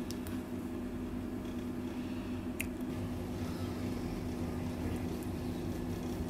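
Steady low electrical hum, with a few light handling clicks near the start and another about two and a half seconds in.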